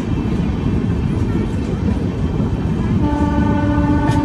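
Passenger train coach running over the rails with a steady rumble, heard from the open coach door. About three seconds in, the train's horn sounds one long note. A couple of sharp clacks from the wheels on the track come near the end.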